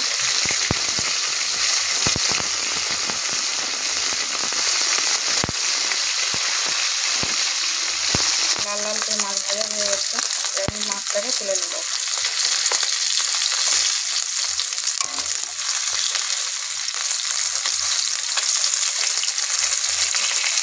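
Turmeric-rubbed rohu fish pieces frying in hot oil in a kadai: a steady sizzle with frequent crackling pops of spattering oil, the pops thinning out after about eight seconds.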